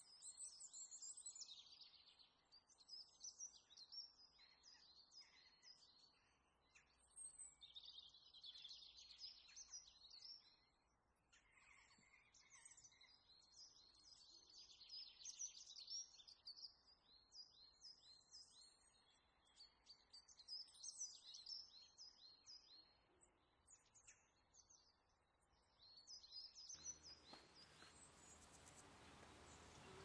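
Faint songbird singing in repeated bursts of quick, high warbling and trilling phrases with short pauses between them. Near the end a steady hiss comes in underneath.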